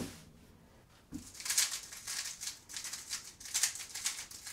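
MoYu WeiLong WR M V9 magnetic speedcube being turned at speed in a timed solve: a fast run of plastic clicking and rattling from the layer turns, starting about a second and a half in. A soft knock comes just before it, after a brief near-silent pause.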